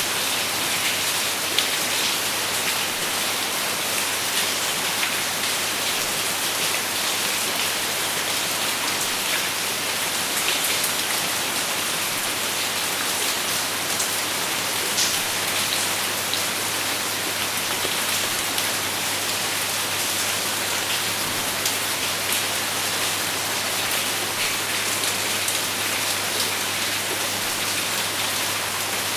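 Steady rain falling on a surface, an even hiss with many small drop ticks scattered through it.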